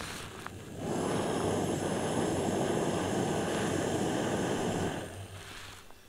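Small gas camping stove burner running on a screw-on canister: a steady hiss that starts about a second in and cuts out about four seconds later, as the gas is shut off.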